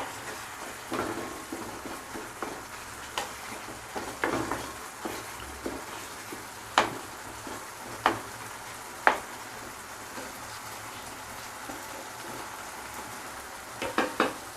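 Prawns in masala frying in coconut oil in a pan, a steady sizzle, with a spoon knocking and scraping against the pan every second or so as it is stirred. The knocks stop about nine seconds in and come again near the end.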